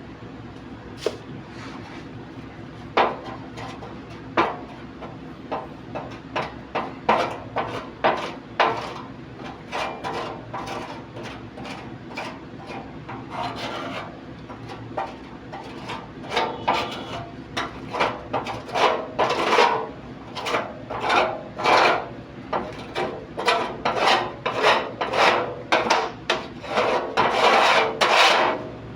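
Repeated hand-worked scraping strokes on metal, sparse at first and then coming about twice a second, over a steady low hum: rust or old finish being rubbed off by hand.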